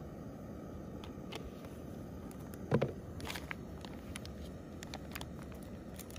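Steady low hiss of a Jetboil canister stove burning under a skillet of beaten egg, with one dull knock about three seconds in and a few light clicks after it.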